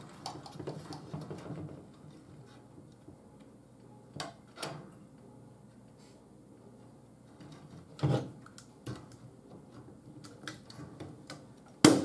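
Chicken wire and a wooden shelf frame being handled and adjusted: light rustling with a few scattered clicks, then one sharp, loud snap just before the end.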